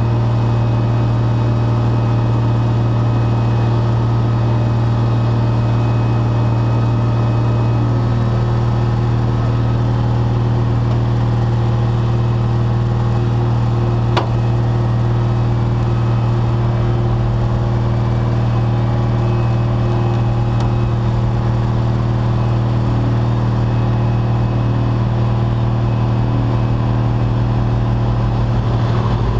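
Heavy wrecker's diesel engine running steadily with a deep, even hum while its winch pulls the ditched semi tractor. There is a single sharp click about halfway through.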